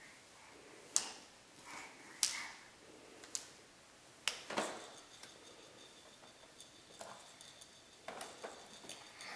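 A crawling baby's hands slap a hardwood floor, with a few sharp slaps in the first half. About halfway through and again near the end come knocks and small clatters from a plastic toy push walker as she grabs it and pulls herself up.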